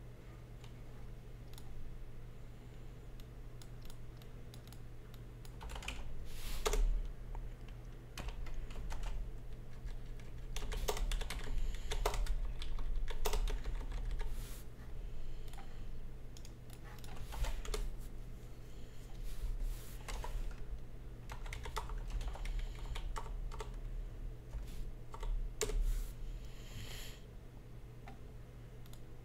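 Typing on a computer keyboard: keystrokes in short bursts with pauses between them, over a steady low hum.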